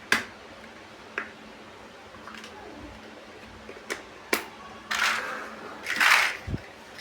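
Plastic building bricks being handled and snapped together: a few sharp clicks, then two longer rattling, rustling bursts of pieces near the end.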